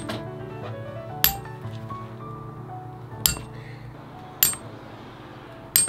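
A shoemaker's hammer tapping a leather hiking-boot upper: four sharp strikes, each with a short metallic ring, about a second in, at three seconds, at four and a half, and near the end, over background music.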